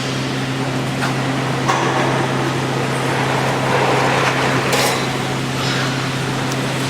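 Induction heating furnace running with a steady electrical hum and a wash of machine noise, with a few sharp knocks about a second in, near two seconds in and near five seconds in.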